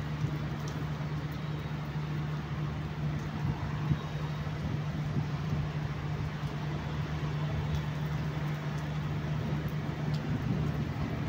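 Steady rain hiss over a constant low hum, with a few faint drip ticks.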